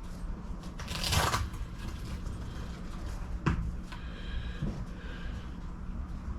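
Hands working on car interior parts: a short rustling scrape about a second in, then a sharp click and a fainter knock over a steady low hum.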